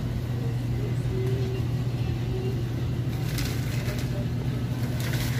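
Steady low hum of refrigeration machinery from open supermarket freezer cases, with faint background music. A couple of brief rustles come in past the middle.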